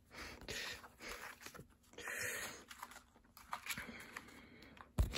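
Quiet rustling and handling of a cardboard box and its paper inserts as they are put back in place, in a few soft swells, with light taps and clicks near the end.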